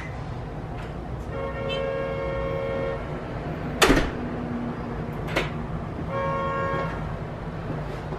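Steady rumble of a vehicle on the move, with two horn-like tones, the first about a second and a half long and the second shorter, and a sharp knock between them.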